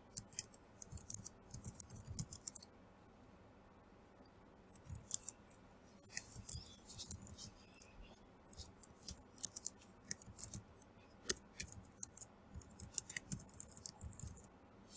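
Typing on a computer keyboard: quick runs of keystroke clicks broken by short pauses.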